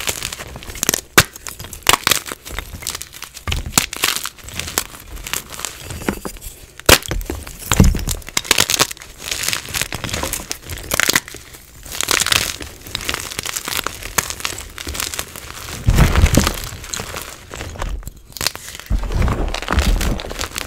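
Gym chalk blocks crushed and crumbled by hand: dry, irregular crunching with many sharp snaps as pieces break off. There are a few deeper, heavier thumps, around eight seconds in and twice near the end.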